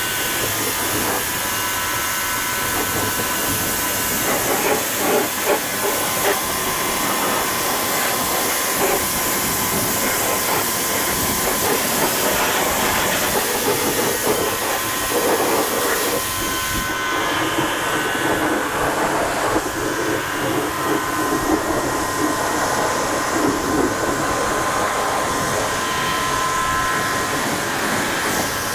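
Pressure washer jet spraying water against a tractor's wheels and chassis: a loud, steady hiss with a few steady tones beneath it. The hiss turns duller a little past halfway.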